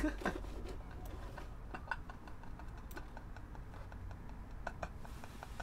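Faint, irregular light clicks and ticks over a steady low hum.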